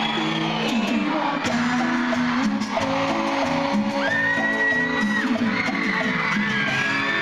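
Live cumbia band music with held keyboard notes and a high sliding melody line, with whoops and shouts over it.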